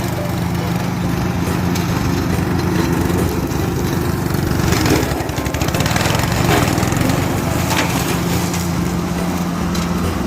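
A small engine running steadily, with a stretch of crackling and snapping in the middle.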